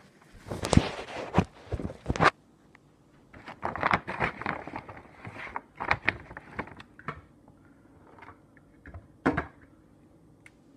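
Handling noise while dog treats are fetched: a run of knocks, scrapes and rustles, busiest in the first seven seconds, with one more knock near the end.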